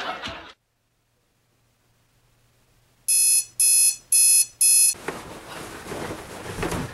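Digital alarm clock going off, four electronic beeps about half a second apart, followed by a low steady hiss.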